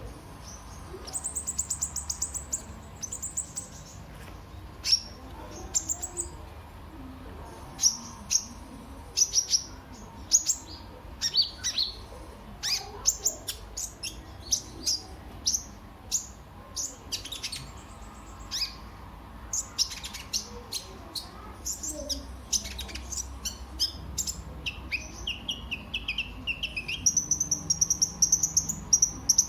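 Kolibri ninja (sunbird) singing: a run of sharp, high chirps and short rapid trills, with a lower buzzy trill a few seconds before the end and a fast, dense trill at the very end.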